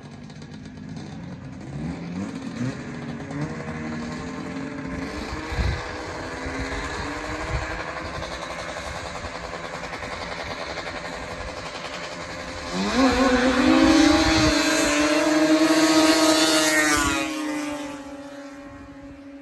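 Two-stroke grass drag snowmobile engines running and revving at the start line. About 13 seconds in, one sled launches at full throttle: its engine pitch shoots up and it is loudest for about four seconds as it runs down the track, then the sound falls away.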